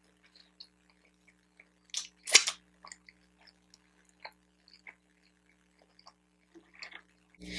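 Close-miked chewing and mouth clicks of someone eating a bacon, egg and Swiss cheese everything bagel, with one louder bite or crunch about two seconds in, over a faint steady hum.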